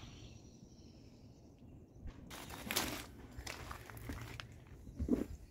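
A person's footsteps on grass and soil, with rustling, starting about two seconds in after a quiet stretch; the loudest step comes about three seconds in.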